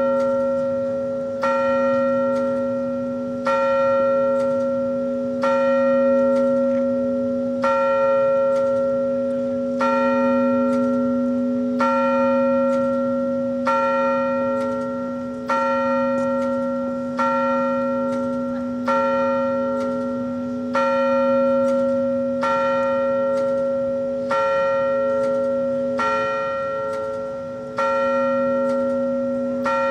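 A single bell tolling steadily, struck about once every two seconds, with each stroke ringing on into the next.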